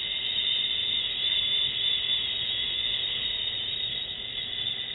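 A long, steady "shhh" exhaled slowly and evenly: the liver sound of the Taoist Six Healing Sounds.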